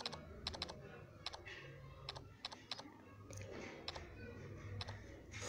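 Typing on a smartphone's on-screen keyboard: a quick, irregular string of light clicks, one for each key tapped, over a faint low hum.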